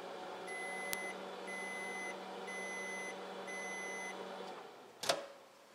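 GE microwave oven running with a steady hum, then four high beeps about a second apart signalling the end of the heating cycle. The hum stops and a sharp click follows near the end as the door is released.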